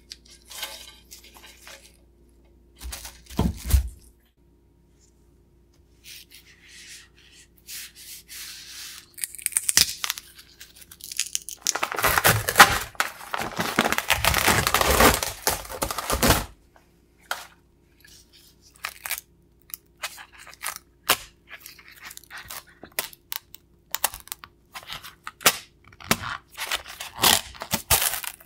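Close handling sounds of carbon fiber lamination with gloved hands: crinkling and rubbing of fabric and film over a resin-wet carbon fiber sheet, with a loud, long stretch of rubbing and tearing-like noise in the middle as peel-ply fabric is smoothed down. Near the end come short crackles as the carbon fiber laminate is peeled up off its flat backing.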